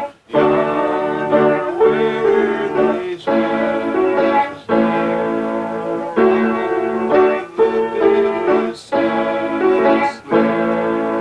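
A keyboard instrument playing a slow tune in held chords, in phrases broken by short pauses.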